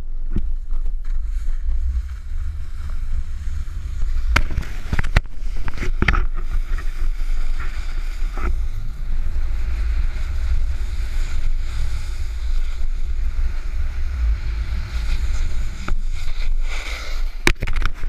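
A snowboard riding down a packed-snow slope: the board scraping and hissing over the snow under heavy wind rumble on the microphone, with a few sharp knocks along the way.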